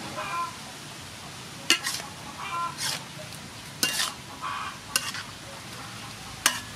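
Beef and bitter gourd sizzling in a wok while being stir-fried, with a metal spatula scraping the pan and striking it in four sharp clacks.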